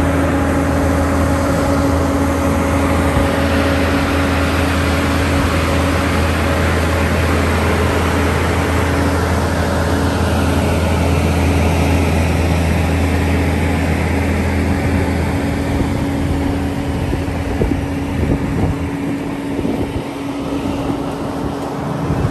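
Mack heavy-haulage prime movers' diesel engines pulling a heavily loaded multi-axle trailer slowly past: a steady deep engine drone over swelling tyre and road noise. The drone fades out about fifteen seconds in, leaving rumbling road noise.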